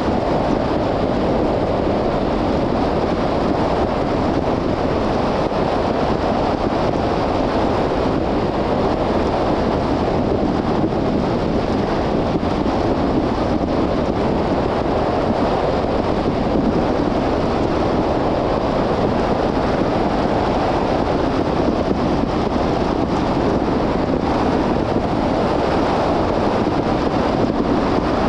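Steady road noise of a car driving: a constant rush of tyres and wind.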